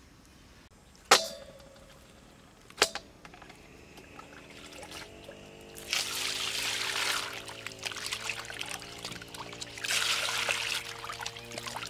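Two sharp knocks in the first three seconds, the first ringing briefly. Then water poured twice from a scoop into a stainless steel bowl of raw frog legs, splashing onto the meat as hands wash it, over background music.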